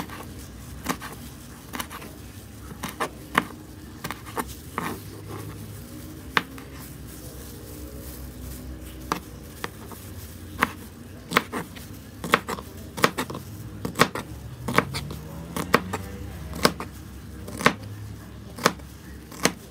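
A chef's knife chopping blanched winged beans on a plastic cutting board: sharp knocks of the blade meeting the board, scattered at first, then settling into about one chop a second.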